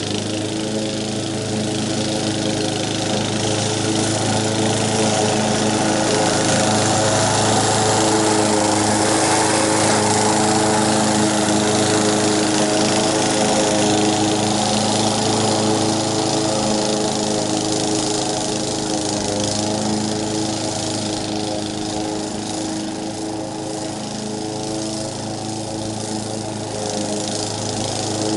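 Honda HR194 push mower's single-cylinder engine running steadily under load while cutting grass, growing louder as the mower comes closer and then fading as it moves away. It runs smoothly off choke, its carburetor freshly cleaned of the blockage that had kept it from running.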